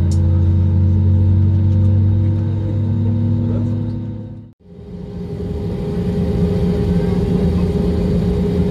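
Airliner cabin noise while taxiing: the jet engines and airframe give a steady low drone with a few held hum tones. About halfway through the sound drops out briefly and fades back in as a rougher, noisier rumble.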